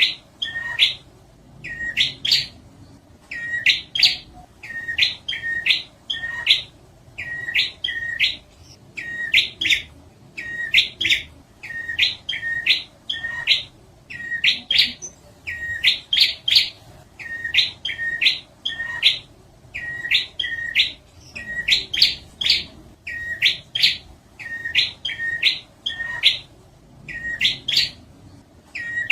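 Prinia (prenjak) calling: loud, rapid runs of sharp chirping notes in short, repeated phrases, about one or two phrases a second without a break.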